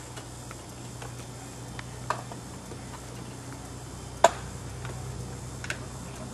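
A few sharp clicks and knocks of the lineman's rescue gear and rope being handled on the pole, the loudest just after four seconds, over a steady low hum.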